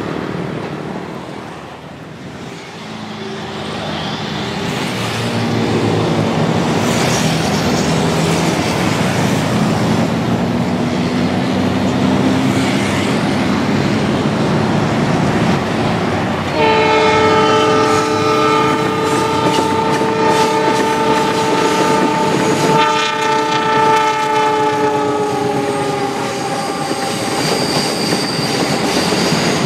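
A diesel locomotive hauling a passenger train approaches, its engine growing steadily louder, then a train horn sounds one long multi-tone blast from about halfway through. The horn holds for several seconds, breaks briefly, and drops a little in pitch as the train goes by, over the rumble and clatter of wheels on the rails.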